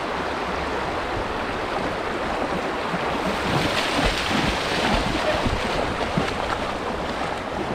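Fast-flowing river water rushing steadily, with wind buffeting the microphone.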